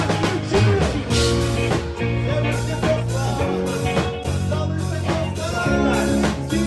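Rock band playing a song: drum kit keeping a steady beat under bass and electric guitar, with a singing voice.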